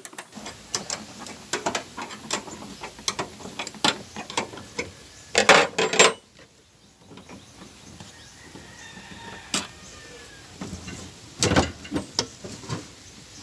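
Irregular clicks, taps and knocks of hand-tool work on a car body, with a dense rattling burst about five and a half seconds in and another loud cluster of knocks near the end.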